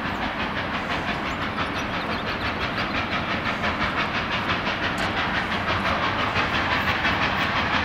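Reading & Northern 2102, a 4-8-4 steam locomotive, working with a rapid, even chuff of exhaust beats that grows gradually louder as it approaches.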